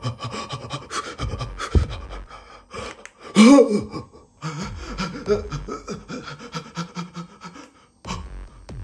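A man panting hard and fast in fright, with a brief loud voiced gasp about three and a half seconds in.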